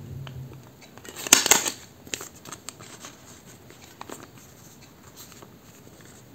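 A desk stapler pressed down through paper and twine, one sharp clacking crunch about a second and a half in, followed by a few light taps and rustles of paper being handled.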